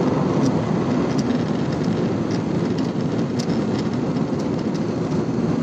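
Jet airliner cabin noise in cruise: a steady, low rushing sound of engines and airflow heard through the cabin, with a few faint clicks.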